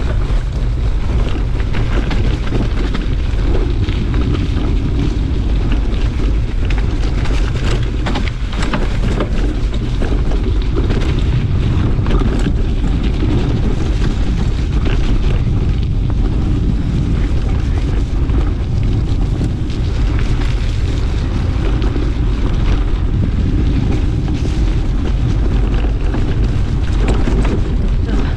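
Wind buffeting the microphone of a camera on a mountain bike riding fast down a dirt track, under a steady low rumble of the tyres on the ground. Frequent short rattles and clicks from the bike run through it.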